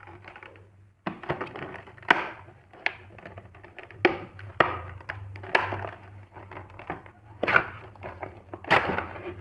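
Packaging being opened and handled by hand: an irregular run of sharp crackles, knocks and rustling from the box and wrapping around a motorcycle handlebar.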